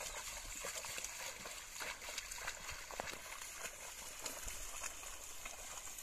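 A pair of bullocks and a wooden plough sloshing through a flooded paddy field: irregular wet hoofsteps and splashes in the mud, over a steady high hiss.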